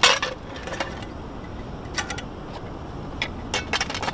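Metal camp cookware clinking: a pot and mug being picked up and set down on the ground, a few sharp clinks spread irregularly across the moment.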